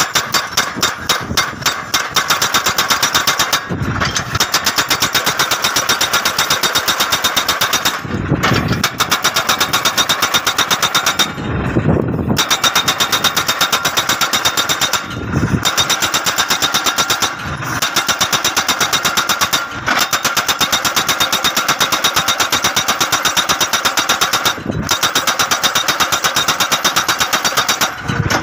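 HSSI-317 hydraulic post driver hammering a steel crash-barrier post into the ground: a fast, even rapid-fire pounding, broken by short pauses every few seconds, with the tractor engine running underneath.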